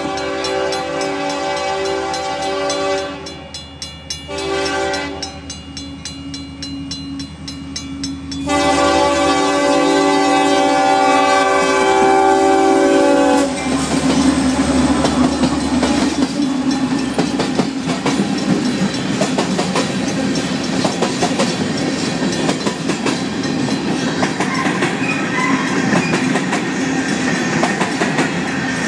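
Union Pacific diesel locomotive's air horn sounding for the grade crossing: a long blast, a short one, and a final long blast, over the steady ringing of the crossing's Safetran mechanical bell. The horn stops about halfway through as the locomotive passes, and the train rolls on with wheels clickety-clacking under grain hopper cars.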